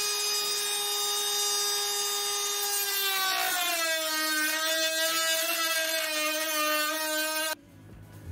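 Dremel rotary tool with a cut-off wheel running at a steady high whine. About three seconds in the pitch drops and wavers as the spinning wheel cuts into the plastic dash bezel and slows under the load. The whine stops abruptly near the end.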